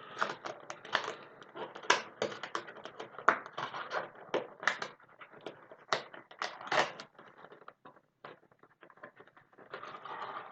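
Plastic packaging crinkling and clicking in quick, irregular crackles as a Heroclix booster pack is handled and opened by hand.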